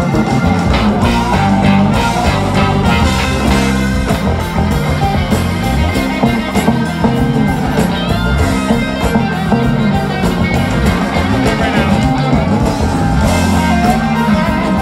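A live band playing rock music on stage, with guitars over heavy bass, loud and continuous.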